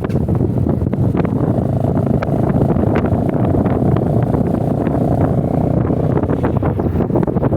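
Wind buffeting the microphone on a moving motorcycle, with the engine running underneath and a faint steady hum in the middle of the stretch.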